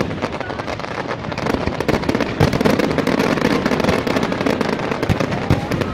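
A dense barrage of aerial firework shells bursting, a continuous run of rapid overlapping bangs with a few louder booms.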